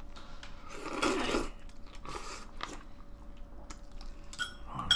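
A person chewing a mouthful of roe-filled sandfish from a spicy stew, the roe crunching. There is a louder noisy mouth sound about a second in, and a few sharp clicks of a metal spoon near the end.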